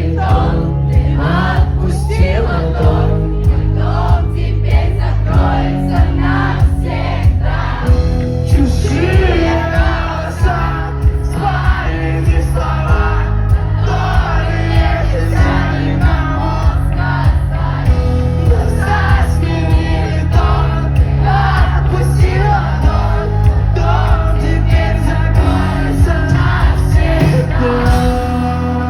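Live rock band playing with a steady drum beat and heavy bass under sung vocals.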